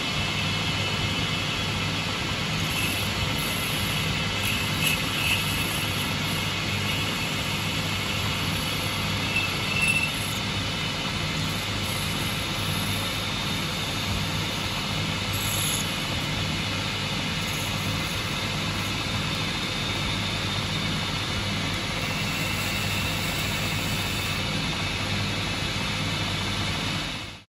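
Boxford BUD metal lathe running under power, its tool cutting a lip into the end of a spinning brass workpiece: a steady motor hum, with a few brief high-pitched squeaks in the first ten seconds.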